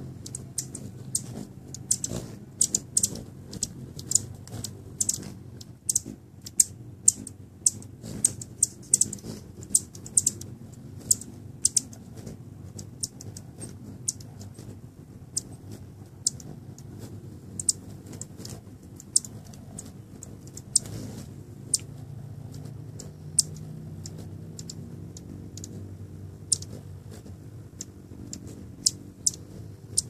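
Hummingbirds at a feeder giving sharp, high chip notes, several a second in the first half and sparser later, over the low hum of their hovering wings.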